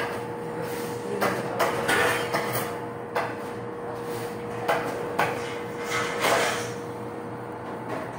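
Irregular sharp slaps and knocks as bread dough is beaten flat by a gloved hand on a stone counter and handled beside a brick oven, about nine of them, over a steady faint hum.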